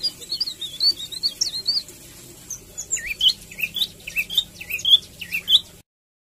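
A small songbird's chirping song: a run of quick warbled notes for about two seconds, then, after a short pause, a string of sharp down-slurred chirps. The sound cuts off suddenly shortly before the end.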